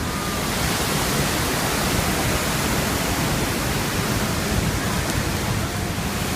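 Steady, loud roar of the Iguazu Falls' rushing water, an even rush with no break.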